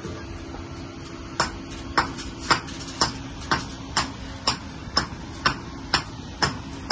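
Sharp, evenly spaced ticks, about two a second, starting about a second and a half in, over a steady low hum.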